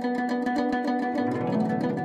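Background instrumental music: a fast run of plucked string notes over held tones.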